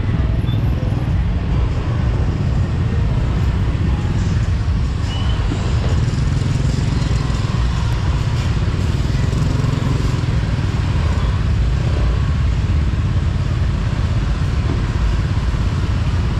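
Motorcycle running steadily on the road, a continuous heavy low rumble with road noise above it.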